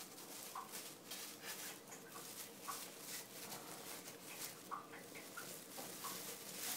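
A kitten licking and mouthing a thin plastic carrier bag: the bag crinkles and rustles in quick, irregular crackles, with small wet licking sounds among them.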